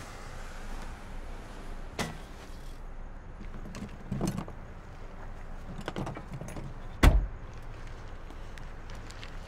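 Car door sounds: sharp clicks and small knocks of handling, then a car door shutting with a heavy thump about seven seconds in, over a steady low hum of the car.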